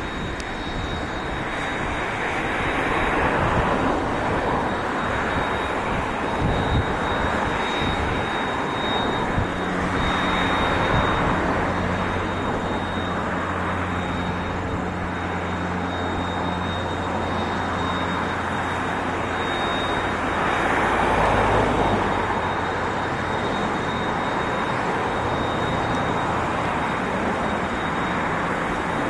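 Steam hissing from NZR JA class steam locomotive 1271, a steady rushing sound that swells and eases several times. A low engine hum runs underneath from about ten seconds in to just past twenty.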